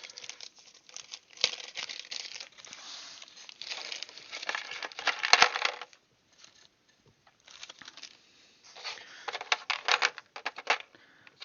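Plastic packaging crinkling and small metal parts clicking and clinking as the alligator clips and other small accessories are unpacked, handled in two spells with a short pause between them.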